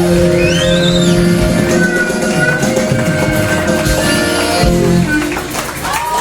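Live band playing an instrumental passage of a soul-rock song, with guitar and a steady drum beat, at full volume.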